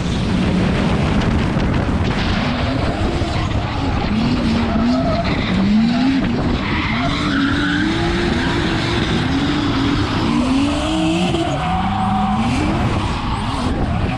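Drift car's engine revving up and falling back again and again, about once a second, over a constant rush of tyres sliding on the surface.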